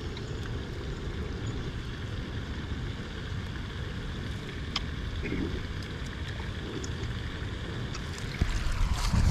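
Wind buffeting the microphone outdoors: a steady low rumble, swelling louder near the end.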